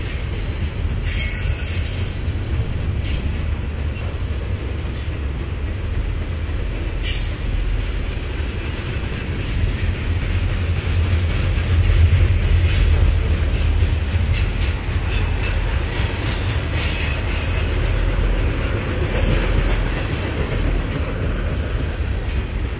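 Freight cars of a mixed manifest train rolling past at speed: a steady heavy rumble of steel wheels on the rails. Brief high squeals and clicks come now and then, and the rumble swells a little about halfway through.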